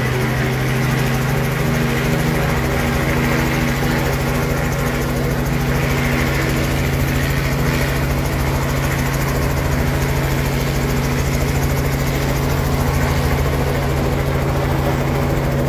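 Small two-bladed helicopter running on the ground with its rotor turning, a loud, steady, even hum of engine and rotor.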